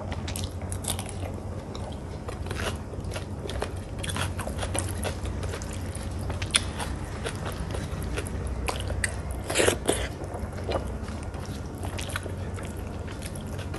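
Close-miked eating: chewing with scattered short mouth clicks, a louder cluster of them about ten seconds in, over a steady low hum.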